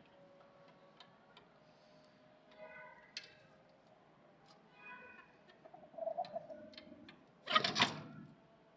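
Chicks: scattered light ticks and taps, two short cheeps, and a loud, brief rustling burst near the end.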